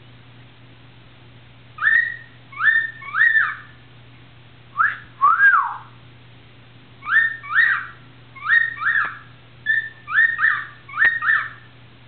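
Cockatiel whistling a song in short clear notes, each rising then falling, grouped in phrases of two or three, starting about two seconds in. A low steady hum runs underneath.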